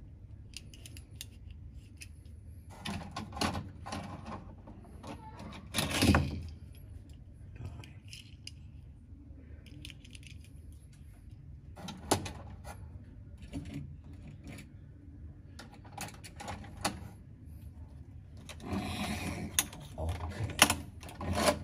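Plastic toys being handled: scattered clicks and knocks as small toy cars are taken out of a toy fire-truck car carrier. Near the end the carrier's plastic ramp is folded up with a quick run of clacks.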